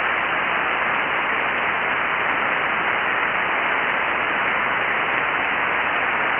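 Steady hiss of band noise from a ham radio transceiver's receiver on 40-metre single sideband, cut off above the narrow voice band, with no station transmitting on the frequency.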